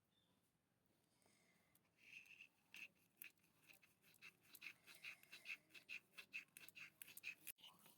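Near silence for about two seconds, then a quiet run of quick, irregular scratching and clicking from small kitchen utensils working in a miniature cooking setup.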